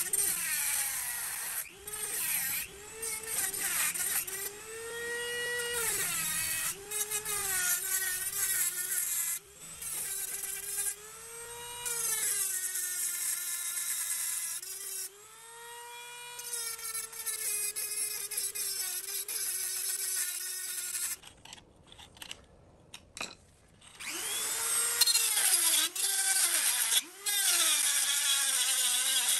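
Corded rotary tool grinding off the rivets that hold the gear to a stock Yamaha YZ250 clutch basket. Its high whine dips in pitch each time the bit bites into the metal and rises again as it eases off. It stops for about three seconds roughly two-thirds of the way through, then starts again.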